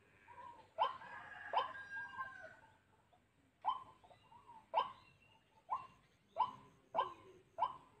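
An animal calling with short, sharp bark-like calls, each dropping in pitch, about eight of them at irregular intervals with a pause near the middle.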